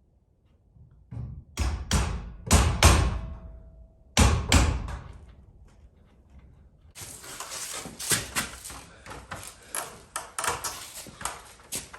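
Hammer blows knocking on wood and bolts of sliding garage-door hardware: a few heavy knocks about a second and a half in, two more around four seconds in, then a long run of quick, light clicks and rattles.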